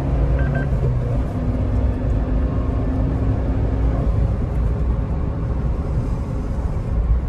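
Maruti Suzuki Jimny's 1.5-litre four-cylinder petrol engine running while the car drives on, heard inside the cabin along with steady road and tyre rumble. The engine's steady note drops away about four seconds in, leaving mainly the road rumble.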